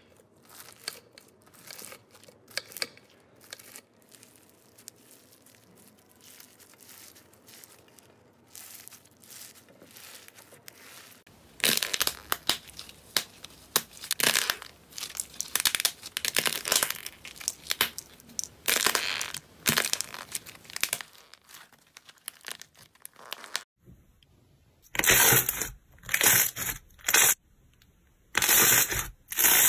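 Slime ASMR handling sounds. First, faint crackling as a knife slices through a foam-bead slime ball. About eleven seconds in, a loud run of crunching and tearing as hands pull apart a crusty blue slime. Near the end, a run of loud separate bursts, each under a second, as fingers press into glossy yellow slime.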